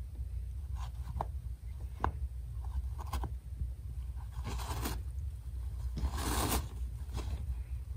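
Siamese cat tearing a paper towel apart with its teeth and paws: short ripping and snapping sounds, with two longer rips, one just before the five-second mark and a louder one a little after six seconds.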